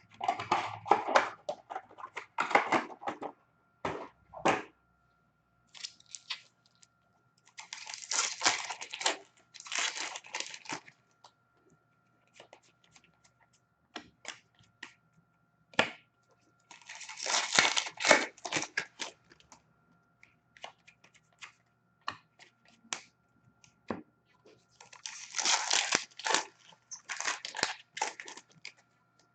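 Foil wrappers of hockey card packs being torn open and crinkled: four bursts of ripping and rustling several seconds apart, with small clicks and rustles between them.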